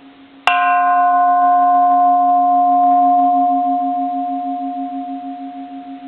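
1930s bronze Japanese Buddhist temple bell struck once with its striker about half a second in, then ringing with a clear tone and higher overtones that slowly fade. Under it a low hum carries on from the earlier strike, wavering in a steady pulse.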